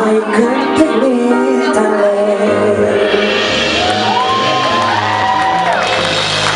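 Live band music with singing; from about halfway, whoops and cheers from the audience come in over it.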